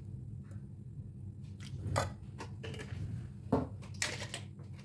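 A few light clinks and knocks of a metal ladle against the clay mortar and sauce bottles as seasoning sauce is added to a pounded long-bean salad. The loudest comes about two seconds in and two more follow near the end, over a steady low hum.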